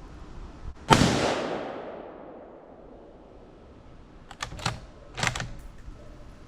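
A single rifle shot from a Ruger American Ranch bolt-action rifle in 5.56, a sharp crack about a second in that echoes away over more than a second. About three and a half seconds later come a few quick metallic clicks and clacks as the bolt is worked to chamber the next round.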